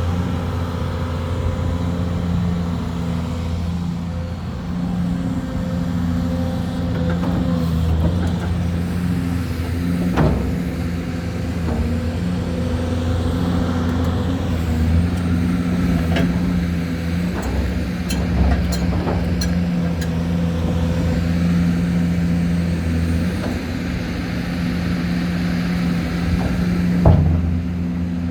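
Hyundai Robex 500 excavator's diesel engine running steadily, with several sharp metallic clanks, the loudest about ten seconds in and near the end.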